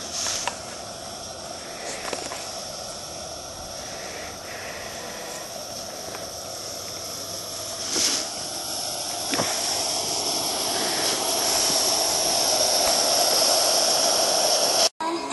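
Large-scale Thomas the Tank Engine model train running along a garden-railway track: a steady hiss and hum of wheels and motor, with a few clicks over the rail joints. It grows louder as it nears.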